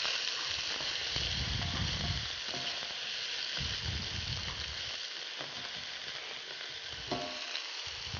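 Chopped onion, ginger, carrot and sweet potato sizzling steadily in a little sunflower oil in a stone-coated pot while being stirred with a wooden spatula. The sizzle fades slightly over the stretch.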